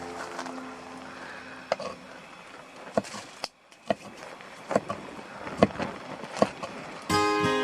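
Irregular sharp knocks and clicks over a low, even background, with a brief drop to near silence in the middle. Guitar music comes back in near the end.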